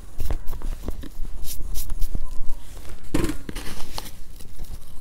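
Hands digging through coarse salt in a plastic container: irregular gritty crunching and scraping. A dull knock about three seconds in as a piece of salt-cured pork is set down in a stainless steel tray.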